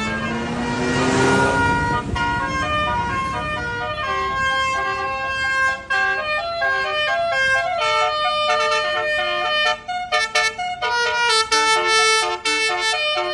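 Basuri-type melody horn, the Indonesian telolet-style vehicle horn played through roof-mounted horn speakers, playing a tune. It opens with a rising siren-like whoop, then plays a melody of stepping, held notes, with a quick run of short notes about ten seconds in.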